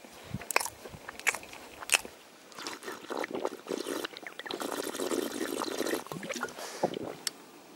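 Crunchy bites and chewing of a sandwich on crusty dark bread, with a few sharp crunches in the first two seconds. Then a plastic drink bottle is handled, with rustling and the liquid inside sloshing, fading out near the end.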